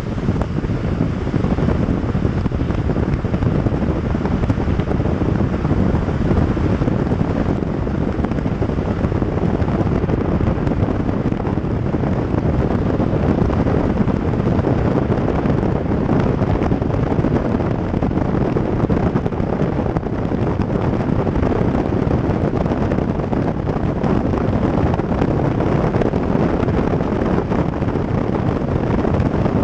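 Wind rushing over a camera microphone mounted on the outside of a moving car, mixed with steady tyre and road noise; the rush stays even throughout.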